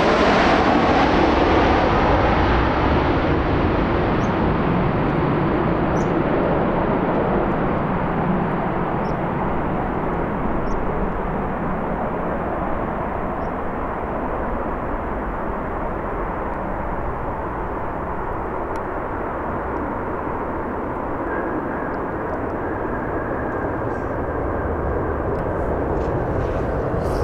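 Boeing 737-800's twin CFM56-7B turbofans on approach and landing: a loud jet rush that fades and grows duller as the airliner moves away down the runway, then swells again near the end as it rolls out after touchdown.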